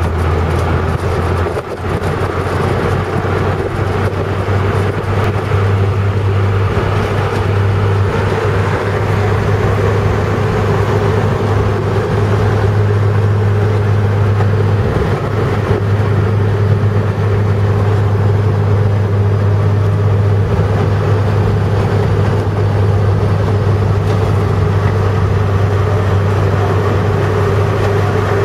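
Steady rumble of a car driving at road speed, heard from inside the cabin: engine, tyres and wind noise, with a strong low hum.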